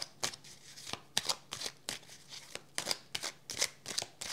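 A deck of oracle cards shuffled by hand: a string of short, irregular card snaps and slaps.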